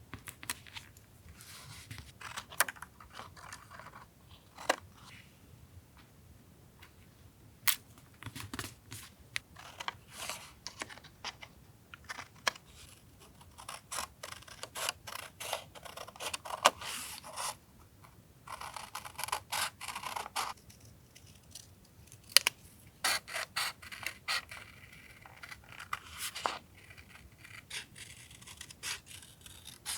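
Paper and stationery being handled on a desk for a collage journal: rustling and scraping of paper with sharp clicks and taps, in short bursts with pauses between.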